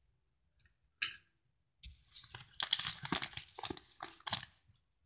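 Folded paper purse rustling and crinkling in the hands as it is squeezed and opened: a short crackle about a second in, then a longer run of dense crinkling from about two seconds in, ending with a sharper crackle.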